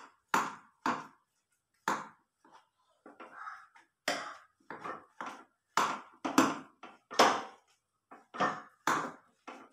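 Metal ladle mashing cooked jackfruit in an aluminium pressure-cooker pot: a steady run of irregular knocks and scrapes against the pot, about two a second.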